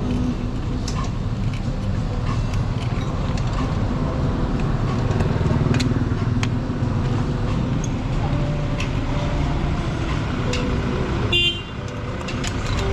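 Road traffic: vehicle engines running by, with scattered clicks and a brief horn toot near the end.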